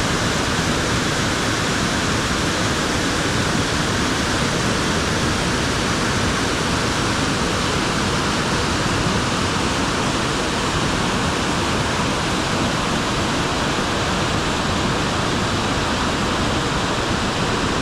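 Waterfall: water falling and splashing in a steady, unbroken rush that never changes.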